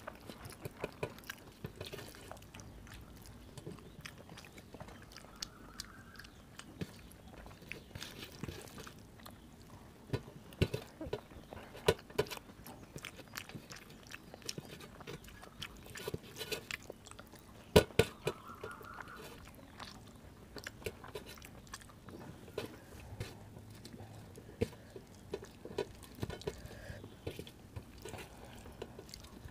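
Close-miked eating by hand: wet chewing and mouth smacks, with fingers squishing rice and kadhi against a steel plate. Scattered sharp clicks; the loudest comes just past the middle.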